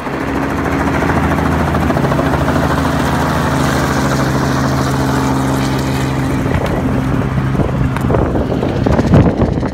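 Helicopter rotor and engine running loudly at takeoff, with a steady drone. A couple of sharp knocks sound near the end.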